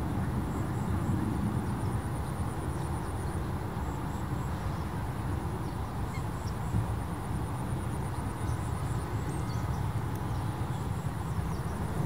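Outdoor field ambience: a steady low rumble, with a faint, rapid, high-pitched pulsing tick running through it and a few faint chirps.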